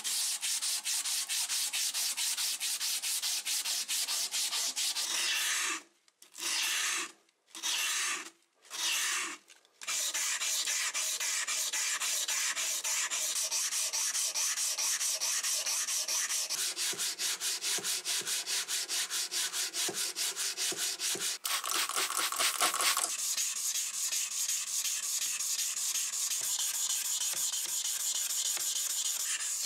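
Hand sanding of old steel tin snips: an abrasive strip pulled back and forth around the handle, then a sanding block rubbed over the metal in quick, even strokes, with wet sanding at fine grit. A few brief pauses break the strokes about a quarter of the way in.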